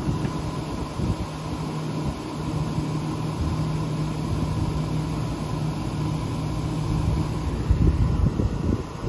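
1970 Signature 6,000 BTU window air conditioner running on high cool: its fan blows steadily, and a steady low hum joins about a second in and holds.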